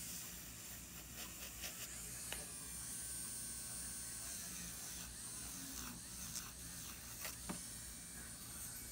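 Electric nail drill running with a cylindrical callus bit, buffing dry callus and cuticle skin beside the fingernail: a steady high whir whose pitch wavers slightly, with a few faint clicks.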